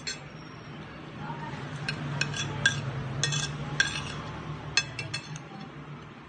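Metal spoon and fork clinking and scraping against a plate while eating, about a dozen short sharp clinks, most of them between about two and five and a half seconds in. A low steady hum runs underneath.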